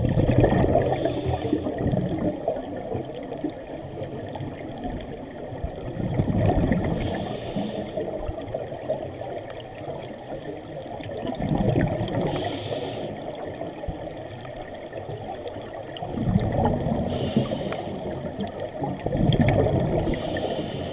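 Scuba diver breathing through a regulator underwater: bursts of bubbling breaths about every five seconds, each with a short hiss, over a steady underwater rumble.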